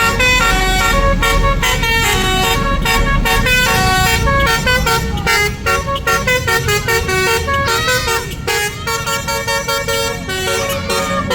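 Indonesian tour bus's basuri telolet musical horn playing a fast melody. Several horn trumpets sound together, stepping from note to note every fraction of a second without a break.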